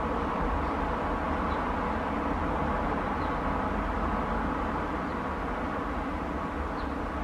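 Steady outdoor background noise with a low rumble, and a few faint, short high chirps scattered through it.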